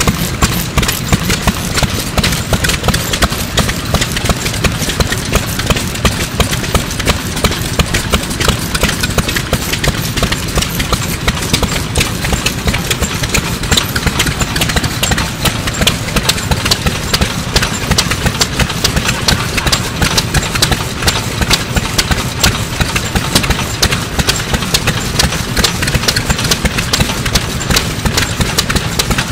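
IWASHITA Iron Works STRONG Type A 2.5 hp single-cylinder hopper-cooled stationary oil engine running steadily, with an even, rapid beat of firing and mechanical clatter.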